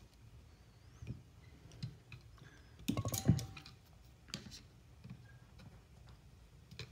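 Small metal clicks and taps of hand tools and parts: snap-ring pliers work the retaining clip into its groove on a motorcycle brake master cylinder. A burst of louder clicks comes about three seconds in.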